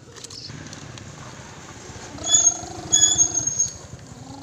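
A child's voice imitating a truck engine, a buzzing, rolling 'brrrm' held at a steady pitch for about a second and a half, starting about two seconds in.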